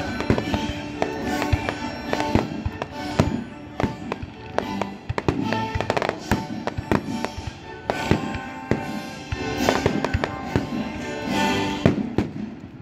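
Fireworks going off in quick succession, sharp bangs and crackles several times a second, over a live orchestra playing held notes.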